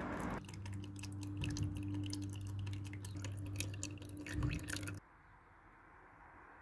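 Used engine oil dripping and trickling from a motorcycle's sump drain into a plastic tub: many small rapid drips over a steady low hum. It cuts off suddenly about five seconds in.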